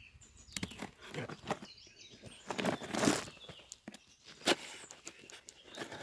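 Scissor blade drawn along the taped seam of a cardboard box, slitting the packing tape: irregular scraping and rustling with sharp clicks. The loudest scrapes come about three seconds in and again at four and a half.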